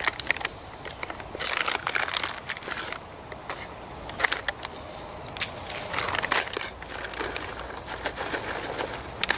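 Crunching of trail mix, with peanuts and pretzel balls being chewed, mixed with crinkling of the plastic pouch, in irregular bursts.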